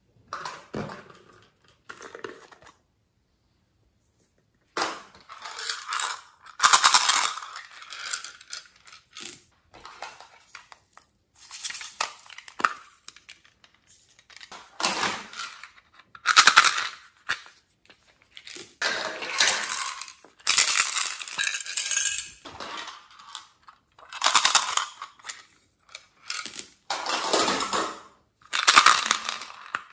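Small plastic toy containers handled and opened over a glass dish of slime, with beads and other add-ins clinking and rattling against plastic and glass. The sound comes in a series of short clattering bursts with pauses between.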